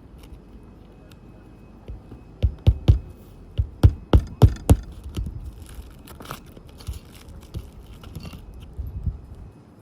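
Work on an old, brittle asphalt shingle roof: a quick run of about eight sharp knocks, then scraping and crackling as the shingles are worked, with a few lighter knocks near the end.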